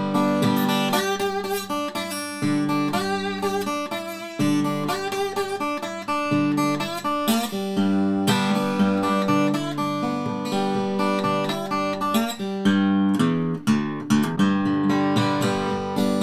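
Collings 002h steel-string acoustic guitar played fingerstyle with a slide on the little finger: a solo country blues instrumental break, steady bass notes under a melody with gliding slide notes.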